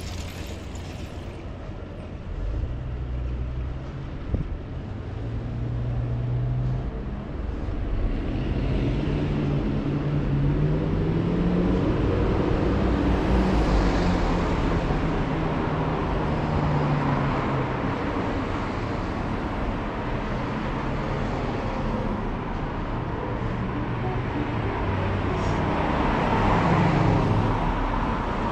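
Road traffic passing along the street: car and van engines and tyres swelling and fading, loudest about halfway through and again near the end.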